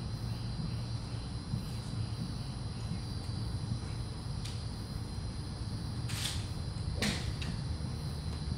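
Steady insect chirring over a low hum at a golf driving range. About six seconds in there is a short swish, and about a second later a sharp click, from golf clubs swung and striking at the bays.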